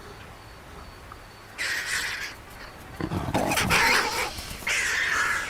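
A lion growling as it defends its kill from vultures, mixed with the vultures' harsh hissing calls. It starts about one and a half seconds in, in several loud bursts, and is loudest at around three to four seconds.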